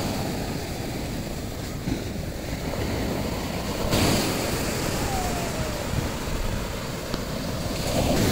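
Sea surf breaking and washing onto a sandy beach, with wind rumbling on the phone's microphone. The sound changes abruptly about four seconds in, where one recording is cut to the next.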